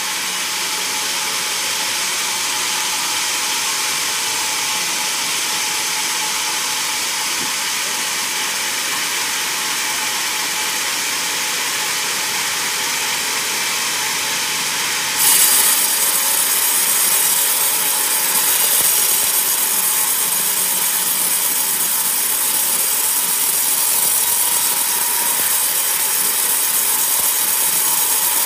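Vertical band sawmill blade ripping lengthwise through a coconut log, a steady high hiss of sawing. About halfway through the sound suddenly becomes louder and harsher and stays that way.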